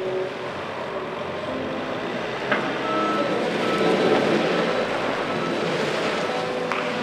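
A vehicle engine running steadily, with a brief click about two and a half seconds in and another near the end.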